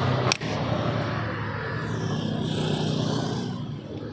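A Daihatsu Taft GT's diesel engine idling steadily, with a single sharp knock about a third of a second in.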